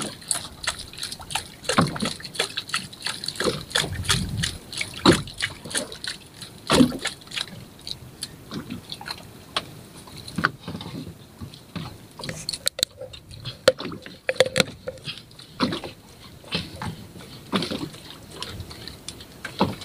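Water sloshing and slapping against the hull of a small boat, with irregular knocks and clicks.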